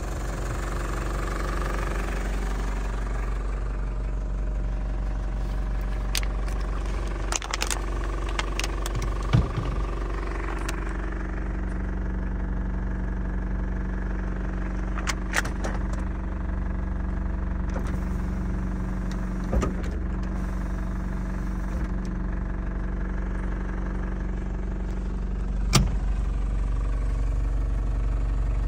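Mitsubishi Delica Star Wagon's turbo-diesel engine idling steadily, with a few short clicks and knocks over the top.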